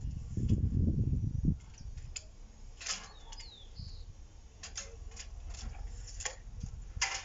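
Scattered light clicks and taps of hand tools against a steel bar clamped in a bench vise as the bar is measured and marked for twisting. A low rumble fills the first second and a half.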